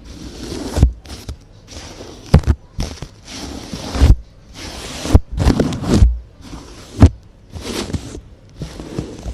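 Close-miked ASMR trigger sounds: an object brushed and scraped against the microphone in short scratchy strokes, each with a soft thump, about one a second.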